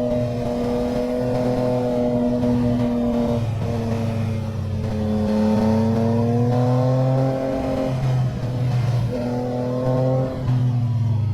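Motorcycle engine running hard under load, its pitch rising and falling with the throttle and breaking off briefly several times as the revs drop.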